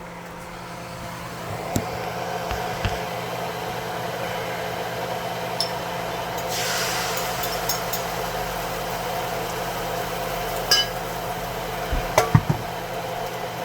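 Stovetop cooking sounds: a steady hum under a few sharp clinks and knocks of a utensil against a pan, with a short hiss about seven seconds in.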